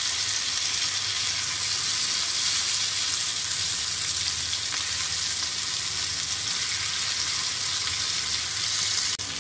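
Slices of surmai (kingfish) coated in spice marinade sizzling steadily in shallow oil on a hot tawa over a medium gas flame, while they are turned over with a knife.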